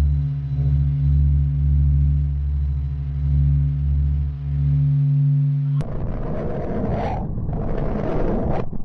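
Designed space-sound effects: a deep, pulsing hum of steady low tones that cuts off suddenly about six seconds in, replaced by a rough, noisy rumble that swells and fades in waves.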